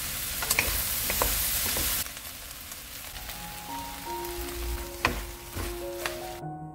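Sliced onions sizzling as they stir-fry in a nonstick wok, with a few sharp knocks of a wooden spatula against the pan. The sizzle is loudest for the first two seconds, then quieter, and soft piano music comes in about halfway.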